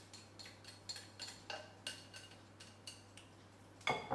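A whisk tapping and scraping against a bowl to knock out the last of the Greek yogurt: a quick run of small ringing clinks, then one louder knock near the end as the bowl is set down.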